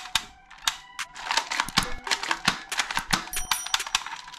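Plastic toy pistol being handled, a quick irregular run of hard plastic clicks and clacks.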